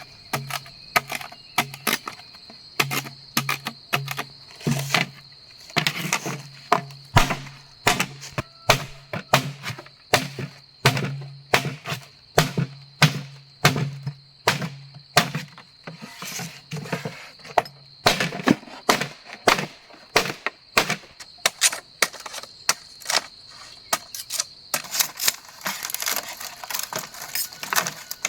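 Wood being struck and broken: a long series of sharp, irregular knocks and cracks, one or two a second, over a steady high whine.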